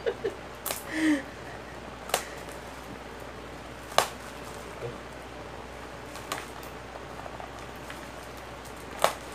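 A few sharp, isolated clicks and snaps, one every second or two, as a parcel's wrapping is worked open by hand, over a low steady hum.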